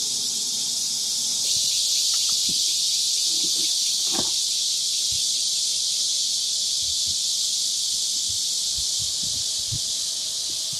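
Insect chorus, a steady high-pitched buzzing drone that grows louder about a second and a half in, with a few faint knocks underneath.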